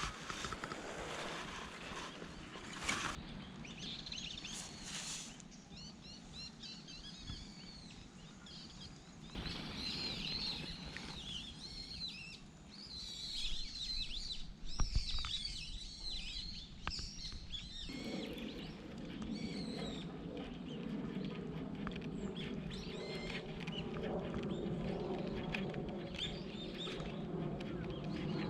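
Small birds chirping and calling in quick, repeated high notes. About two-thirds of the way through, a steadier, lower sound of unclear source comes in under them.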